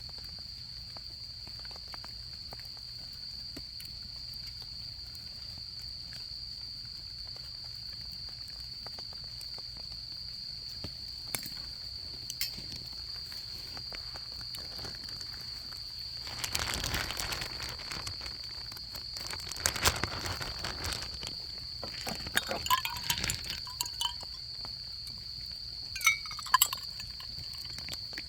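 Autumn insects (crickets) trilling steadily on one high note, with a few sharp clicks, a stretch of rustling after the middle, and several bright clinks that ring briefly near the end.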